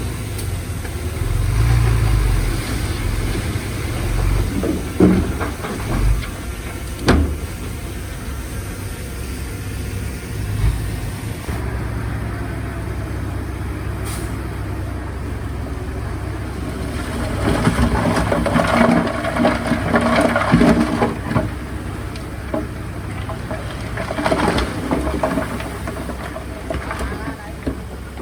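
Diesel engines of heavy earthmoving machinery running steadily. A few sharp knocks come about five and seven seconds in, and the sound grows louder and busier for a few seconds past the middle.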